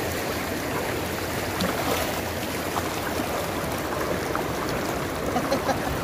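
Lake water sloshing and splashing as a cast net with fish caught in it is dragged through the shallows by a wading fisherman, with a few sharper splashes near the end.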